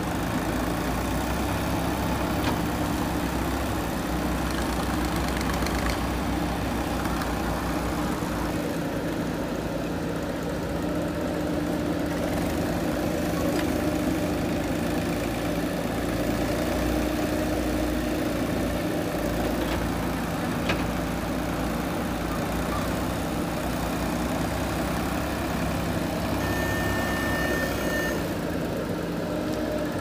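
JCB 3DX backhoe loader's diesel engine running steadily while the backhoe arm digs and swings soil, with a few faint clicks.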